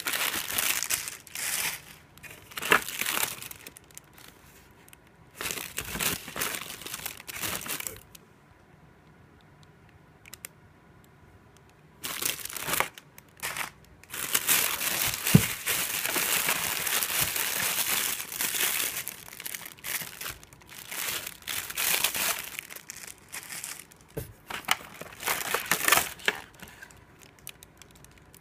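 Crinkling plastic packaging, produce bags and bubble wrap, being handled in bursts with a couple of quiet pauses. A longer unbroken stretch of rustling comes in the middle.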